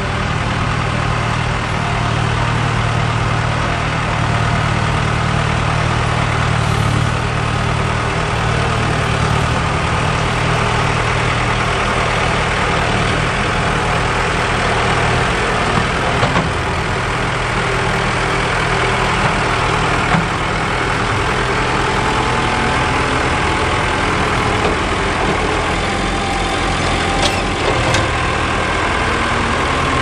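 Mahindra four-wheel-drive tractor's diesel engine running steadily as the tractor pushes a front-loader bucket of dirt.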